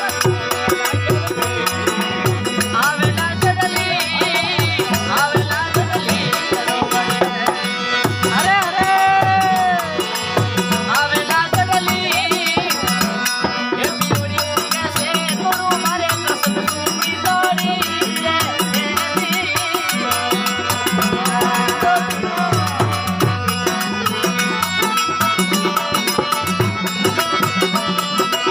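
Instrumental passage of Indian folk devotional (bhajan) music: a bending melody line over a steady hand-drum rhythm with jangling rattle percussion.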